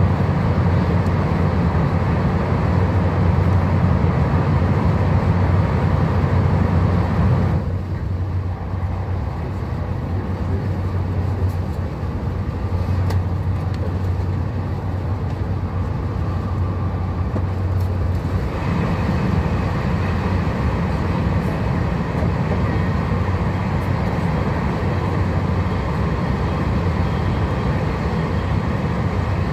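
Cabin noise of a TGV high-speed train running at speed: a steady low rumble with a hiss above it. About seven seconds in it turns quieter and duller, and it comes back fuller about eleven seconds later.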